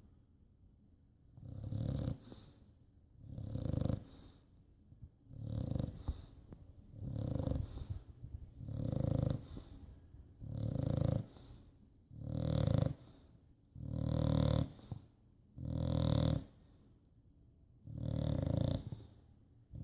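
Bulldog snoring: about ten loud snores, one every two seconds or so, with quiet gaps between breaths.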